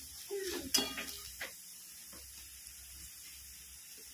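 Spatula scraping and stirring chopped onion, garlic and ground masala frying in oil in a metal kadhai: a few sharp scrapes in the first second and a half, then a faint steady sizzle.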